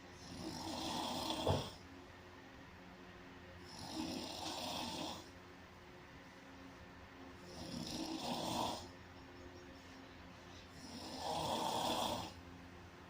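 A person snoring loudly and evenly, four snores about three and a half seconds apart. The first snore ends in a sharp click.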